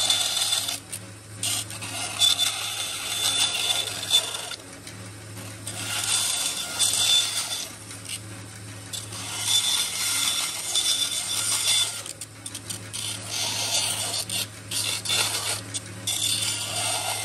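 Bandsaw running with a steady motor hum while its blade cuts through the plastic frame of a factory car-door speaker. The cutting noise comes and goes in stretches of one to three seconds as the speaker is turned into the blade.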